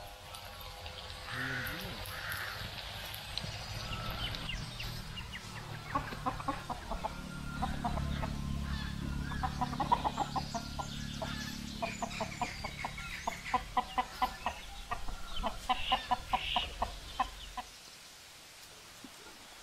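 Hen clucking in a rapid run of short calls, about four a second, over a low rumble that stops shortly before the end.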